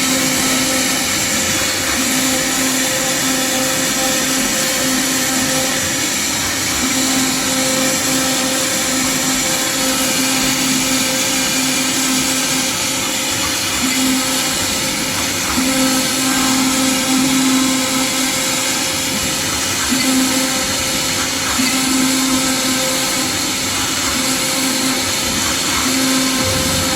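CNC router spindle running and cutting MDF: a loud, steady whirring with a hum that swells and fades every few seconds.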